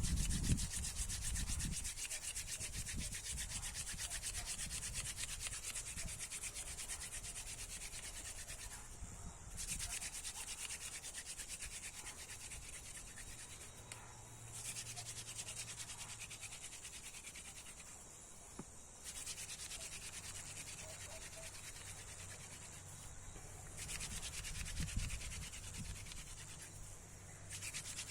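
Wood rubbing hard on wood as a friction-fire set is worked, a fast rasping scrape that runs in bouts broken by brief pauses about every four to five seconds.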